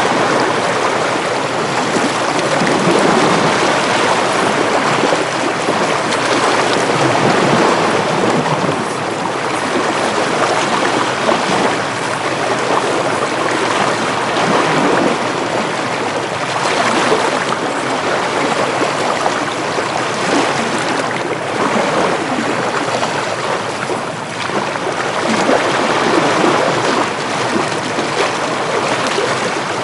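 Ocean waves washing in with wind: a steady rushing of water that swells and eases gently over several seconds.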